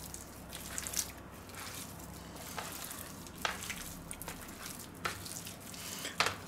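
Hands kneading raw pork neck pieces coated in mustard in a stainless steel tray: soft wet squishing of the meat with a few short sharp clicks, the loudest about six seconds in.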